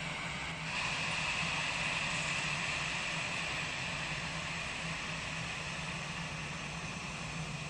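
Jet engines of a Citilink Airbus A320 at taxi power: a steady high whine over a low hum. The whine swells about a second in and slowly eases.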